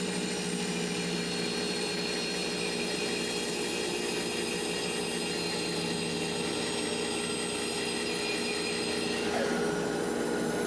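A 2-horsepower Grizzly bandsaw running steadily with a hum of several tones, its blade slowly cutting a slab from a staghorn sumac log.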